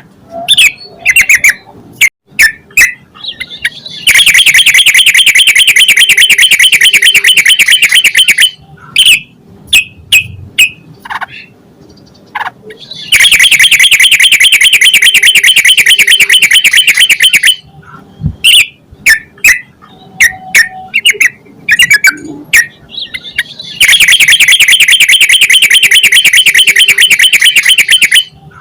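Yellow-vented bulbul (trucukan) song: short sharp chirps and calls broken by three long, very fast buzzing trills of about four and a half seconds each, over a faint steady hum.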